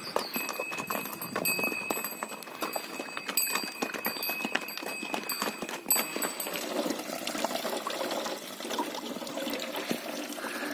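Pack mules walking on a stony trail: hooves clopping over rock, with a high ringing tone from the mules' bells sounding on and off. The clopping and ringing stop about two-thirds of the way through, leaving a quieter hiss like trickling water.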